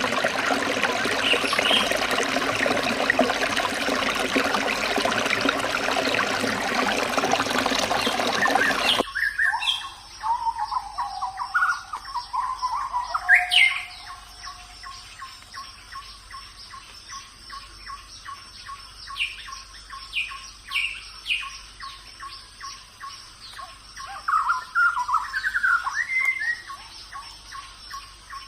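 Water running in a stream for about nine seconds, then an abrupt cut to birds chirping and whistling. Under the birds run a steady high-pitched hum and a fast, even ticking.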